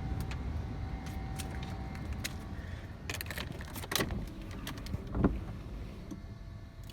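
Car keys jangling and clicking, with a louder knock a little after five seconds, against a low steady rumble; the Porsche Boxster's engine is not yet running.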